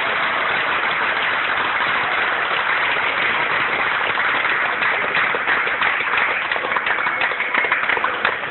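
Audience applauding steadily after a speech, thinning to more separate claps near the end.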